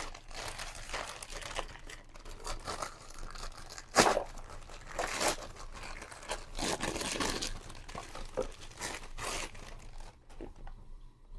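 Packaging being torn open and crinkled by hand: irregular rustling and ripping, with one sharper, louder rip about four seconds in.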